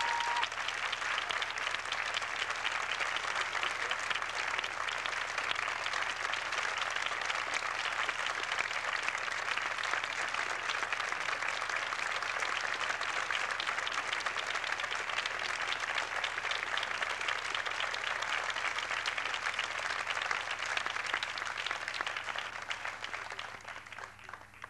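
Theatre audience applauding steadily, the clapping thinning near the end and then cutting off abruptly.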